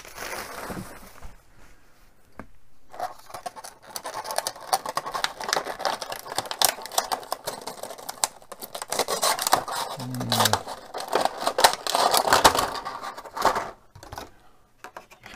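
Clear plastic blister packaging being bent and pried apart by hand: a loud, irregular crinkling and crackling rustle, starting about three seconds in and stopping shortly before the end.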